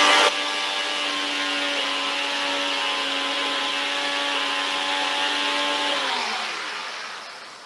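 Nutribullet blender running as it purées homemade tomato ketchup. Its motor drops abruptly in loudness just after the start, runs steadily, then winds down with falling pitch about six seconds in as it is switched off.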